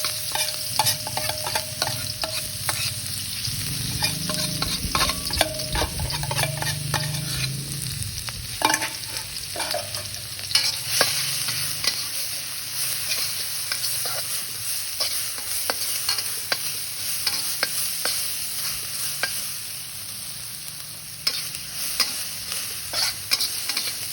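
Food sizzling in a hot pan while being stirred, with frequent sharp scrapes and clicks of a utensil against the pan. A low hum runs under it for the first several seconds.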